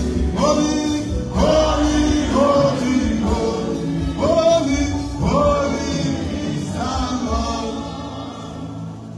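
Gospel worship song: a man singing into a microphone over musical accompaniment, in short phrases that each rise in pitch at the start, about one a second, easing off near the end.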